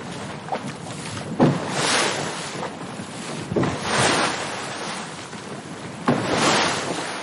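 Ocean waves washing in, three swells about two and a half seconds apart, each rising and fading.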